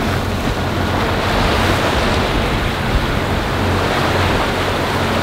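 Sea water rushing and churning along the hull of a moving motor yacht as the bow wave and wake foam past, steady and loud, with wind buffeting the microphone.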